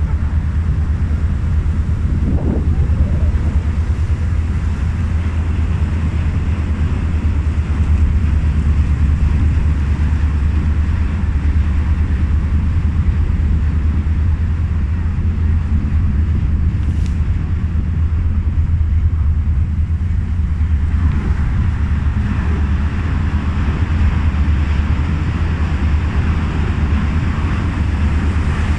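Steady low rumble of a ferry's engines while the boat pushes through broken river ice, with wind buffeting the microphone. About two-thirds of the way in, a rougher hiss rises over the rumble.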